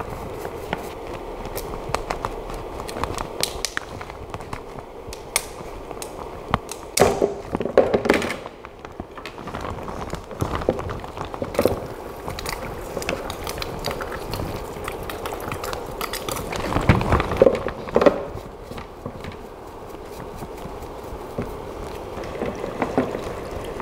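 A brush scrubbing a resin 3D print in a plastic tub of alcohol to wash off uncured resin. It makes rapid scratchy brushing strokes with small clicks and knocks against the plastic, and louder bursts of handling about seven and seventeen seconds in.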